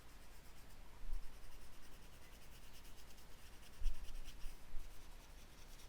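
Light, quick back-and-forth shading strokes of a colouring tip on paper, a few strokes a second, as colour is laid in lightly for a shadow.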